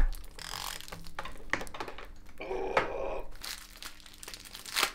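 Rustling and crinkling from hands handling mountain-bike parts during a tune-up, with a few light clicks and knocks.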